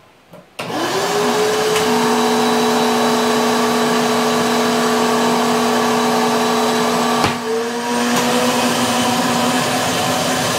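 A vacuum former's suction motor spinning up and then running steadily, pulling air down through the perforated table as a heated plastic sheet is drawn over the molds. About seven seconds in there is a click and a brief dip, after which the motor's pitch rises slightly.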